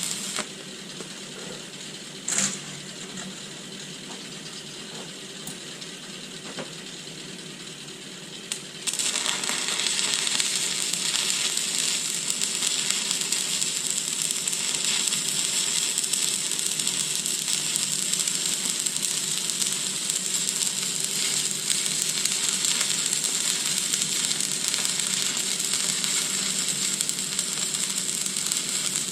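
Welding arc crackling and hissing steadily from about nine seconds in as the capping pass is laid. Before that there is a quieter steady hum, with a single sharp click about two seconds in.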